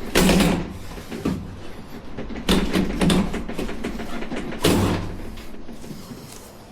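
Heavy sliding glass door panel being shoved along its track in three loud scraping bursts, its rollers rusted from salt air.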